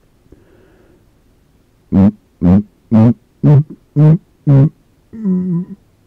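A man's closed-mouth burps right next to the microphone: six short, pitched burps about two a second, then one longer burp near the end.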